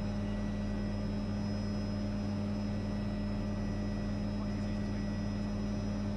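Helicopter's turbine engine and rotor running steadily, heard from inside the cockpit: an even low drone with a constant high whine over it.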